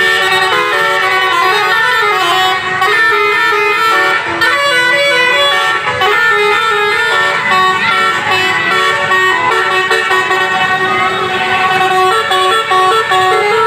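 Basuri musical bus horn (klakson telolet) playing a tune, one sustained horn note stepping straight into the next without a break.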